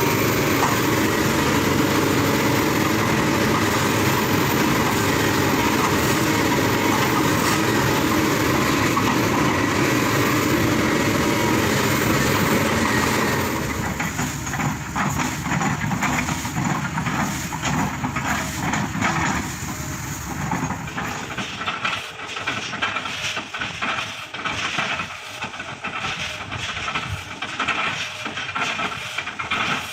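Kobelco excavator working on oil palm trunks: its diesel engine runs steadily under load, and about halfway through the sound turns into a rapid, uneven knocking and crunching.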